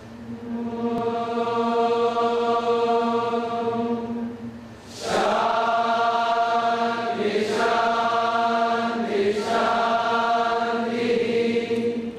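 Devotional mantra chanting: a single long held note for about four seconds, a brief break, then more sustained notes that step up and down in pitch.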